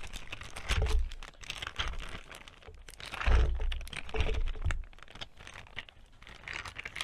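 Plastic bag of fresh cranberries crinkling and rustling as it is shaken out over a stainless saucepan, with berries tumbling in as irregular clicks and a few louder handling noises.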